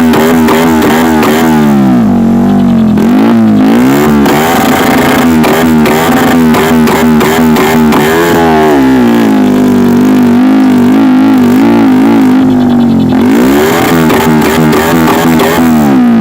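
Bajaj Pulsar 150 single-cylinder engine revved up and down repeatedly, its pitch rising and falling with each blip, with crackles from the misfiring exhaust. Music plays over it.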